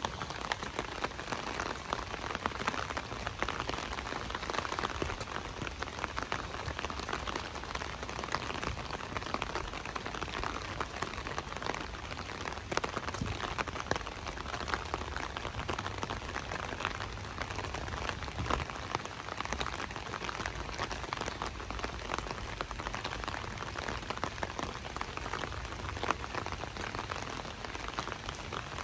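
Light rain falling steadily, a dense patter of many small drops.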